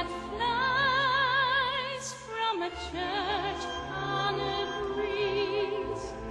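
Music: a singer in an operatic style holding long, high notes with a wide vibrato over instrumental accompaniment.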